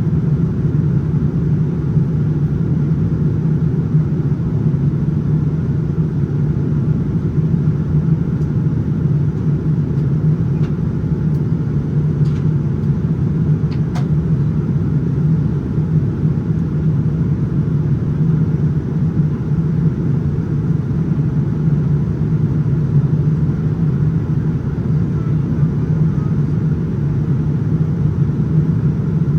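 Steady cabin noise of a Boeing 787-9 in flight: an even, low rumble of engines and airflow, with a few faint clicks about halfway through.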